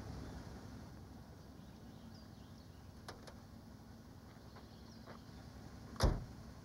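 A car door shuts with a single heavy thump about six seconds in, after a few faint clicks, over a low steady rumble.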